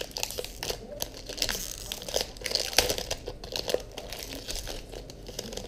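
Foil Pokémon trading-card booster pack wrapper crinkling and tearing as it is ripped open by hand: a dense run of sharp crackles, loudest about three seconds in.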